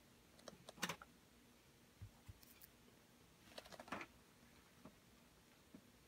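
Faint handling noise: small clicks and taps of light plastic parts being picked up and turned over, in a quick cluster about a second in and another around four seconds in, with two soft low thumps between.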